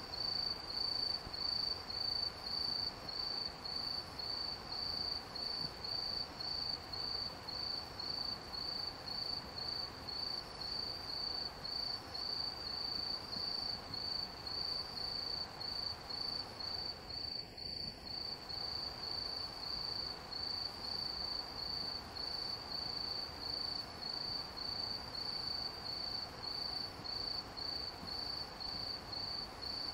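An insect chirping steadily at one high pitch, about two chirps a second, over faint steady background noise.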